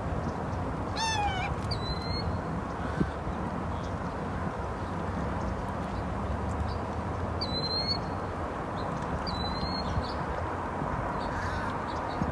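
Outdoor bird calls over a steady low background hiss: one short call with several overtones, pitched down, about a second in, then three brief high chirps spread through the rest of the stretch.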